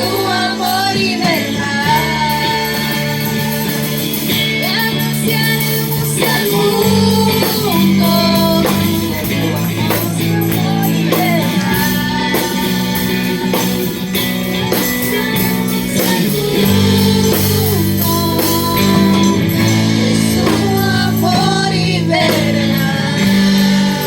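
Worship song: a voice singing over guitar with steady low accompaniment.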